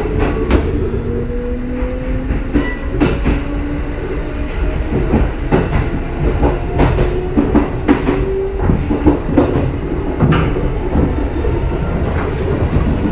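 Six-car Kintetsu electric train (1233 series coupled to 8600 series) moving through the station, its wheels clicking and clattering over rail joints. A motor whine rises slowly in pitch over the first few seconds.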